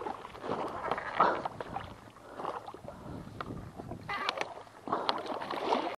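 A large carp thrashing in a landing net in shallow water, in irregular bursts of splashing.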